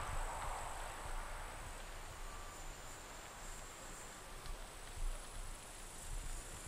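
Insects chirping steadily in tall grass, a continuous high thin buzz, over a low rumble.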